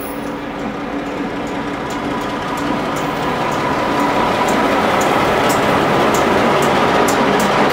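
Two EMD diesel locomotives, an MP15AC switcher leading and a GP38-2 behind, running toward and past the listener. The diesel engine drone holds steady tones and grows steadily louder as the lead unit draws level about six seconds in. Sharp wheel clicks on the rails come more often toward the end.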